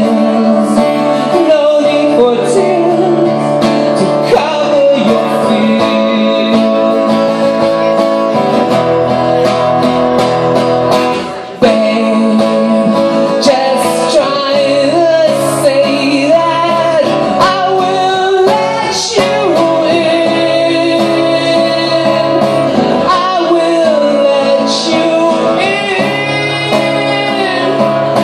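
Live acoustic guitar with a man singing into a microphone. The music drops away briefly about eleven seconds in, then comes back sharply.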